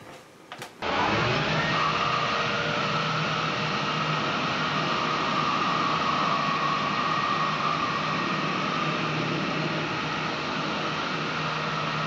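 Ego cordless battery leaf blower switched on about a second in, spinning up to a steady full-power blast: a loud rush of air with an even motor whine.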